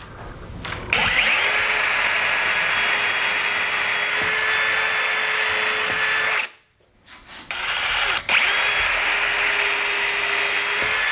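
Electric drill pre-drilling pilot holes into a wooden 2x4 wall stud. The motor spins up about a second in and runs steadily for about five seconds, then stops. After a brief blip it runs steadily again.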